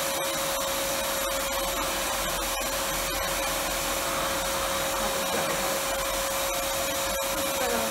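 RevAir reverse-air hair dryer running steadily: its suction-and-airflow unit gives an even rush of air with a constant tone.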